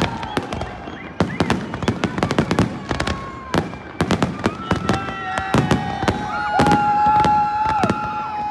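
New Year fireworks bursting in rapid, irregular succession: sharp bangs and crackles one after another, with a long held tone over them about two-thirds of the way in.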